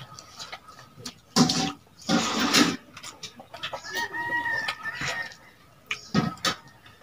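Domestic chickens calling: loud clucks about a second and a half and two seconds in, then a drawn-out, arching rooster crow about four seconds in.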